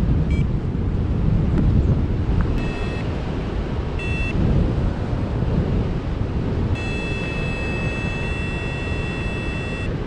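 Wind rushing over the microphone in flight, with a paragliding variometer beeping: two short beeps about a second and a half apart, then a long steady tone from about seven seconds in to near the end.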